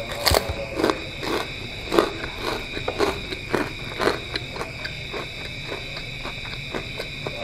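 Close-up crunching of a krupuk cracker being chewed: sharp crisp crunches about twice a second for the first four seconds, then softer and sparser.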